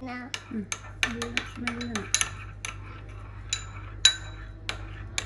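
A utensil clinking and tapping against a dish as chopped green chillies are tipped into the bowl: a quick run of sharp clicks, with a couple of brighter ringing strikes a little past the middle.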